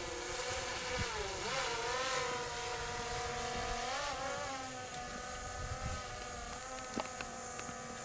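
A motor running with a steady hum, its pitch dipping and rising briefly about one and a half seconds in and again about four seconds in.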